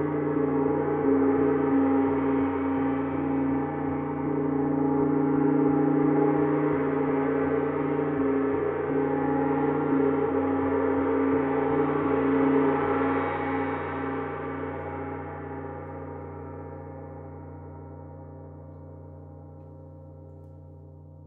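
A gong sounding with a thick wash of many overtones, held at an even level for the first half, then slowly dying away over the last several seconds.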